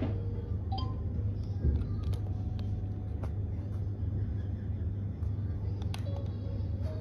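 A steady low hum throughout, with a few sharp clicks and faint electronic beeps from a VTech toy cat. About six seconds in, a button on the toy clicks under a finger and a short electronic melody starts.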